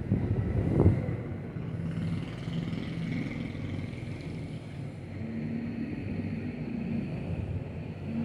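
A steady low mechanical hum and rumble, like a running motor, with a short thump about a second in.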